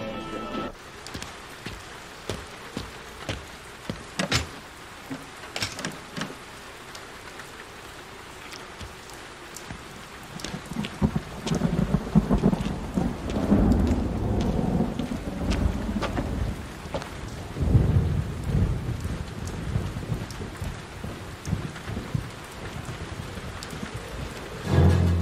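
Steady heavy rain with scattered drips and splashes. Low rolling thunder rumbles through the middle, for about eight seconds.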